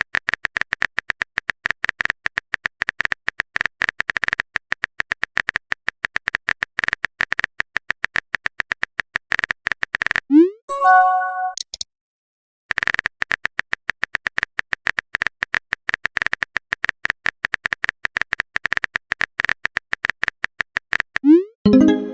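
Text-chat typing sound effect: rapid clicks at one high pitch for about ten seconds, then a short rising swoop and a bright few-note message chime. The clicking starts again and the swoop and chime return near the end.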